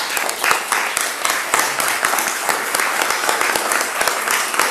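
An audience applauding in an echoing meeting room: many people clapping together, steady and dense.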